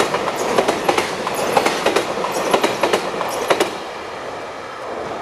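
Wheels of a container freight train's last wagons clattering over the rail joints in quick pairs over a steady rolling rumble. The clatter stops about three and a half seconds in as the tail of the train passes, leaving a quieter steady background.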